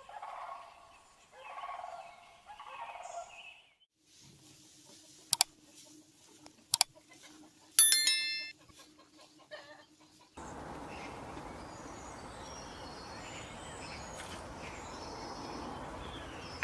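Domestic fowl calling in a run of short clips: three short calls at the start, then a few sharp clicks and a brief high call about 8 s in. From about 10 s there is a steady background hiss with faint chirping.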